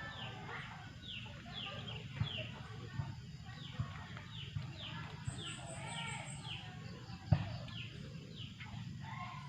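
Birds calling with many short falling chirps in quick succession, over a low rumble with a few dull knocks, the loudest a little past seven seconds in.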